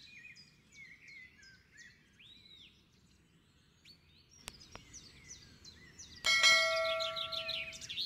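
Small birds chirping in quick repeated calls. Then two sharp clicks, and about six seconds in a bright bell chime with several ringing tones that fades over a second or so. This is the click-and-ding sound effect of a subscribe-button animation.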